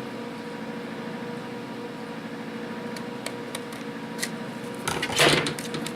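Thick paper being handled and worked, with faint ticks and a louder crinkle of paper about five seconds in, over a steady electrical hum in the room.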